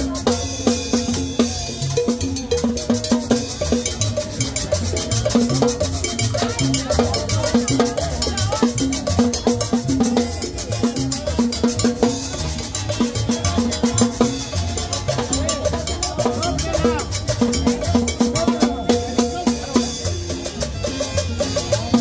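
Upbeat Latin dance music with cowbell and drums keeping a steady, fast beat over a pulsing bass line.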